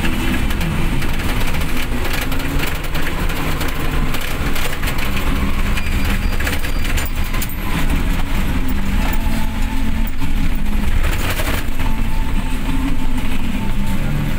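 Inside a car cabin while driving in heavy rain: steady low rumble of the engine and tyres on the wet road, with a dense crackle of raindrops hitting the car.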